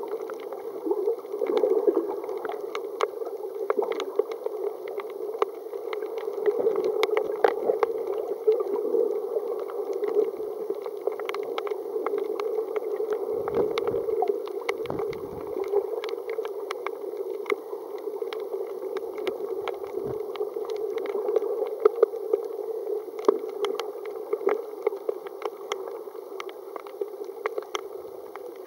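Underwater ambience heard through a submerged camera: a steady muffled water rush with scattered crackling clicks throughout. A few low thumps come near the middle.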